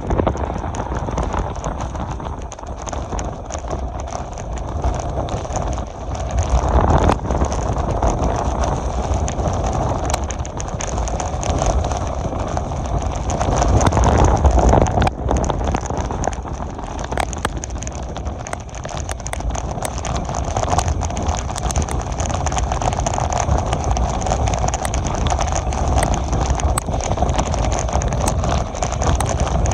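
Passenger train running along the track: a steady rumble of wheels on rail, with scattered clicks, clatter and wind noise.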